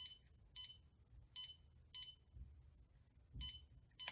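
Power probe circuit tester giving short, faint, identical electronic beeps about every half second, with a break of over a second in the middle, as its tip touches the compressor wiring: the probe is signalling a ground connection.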